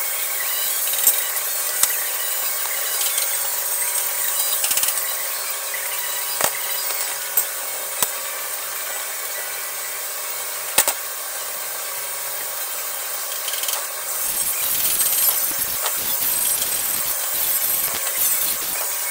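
A small power tool running steadily, with several sharp clicks along the way and a rougher, more uneven stretch near the end.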